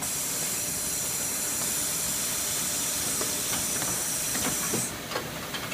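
Steady high hiss of compressed air in a Koyo grinder's automated loading station, cutting off suddenly about five seconds in. A few light mechanical clicks sound just before the hiss stops.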